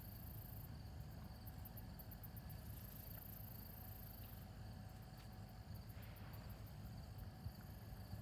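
Insects singing in a very high pitch, switching between a steady trill and runs of rapid pulses, over a low rumble of wind or handling noise.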